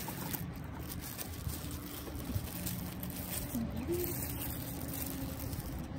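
Cardboard box flaps and a plastic bag rustling as a water bottle sealed in plastic wrap is pulled out of its box, with scattered soft handling noises over a steady background noise.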